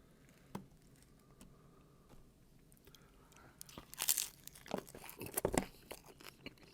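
Crunchy bites into a Doritos Locos taco's hard shell, then chewing. The crunching starts a little past halfway, after a single faint click about half a second in.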